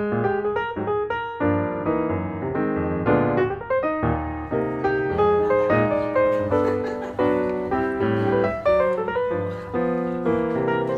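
Solo piano music: a continuous run of struck notes and chords at an even, lively pace.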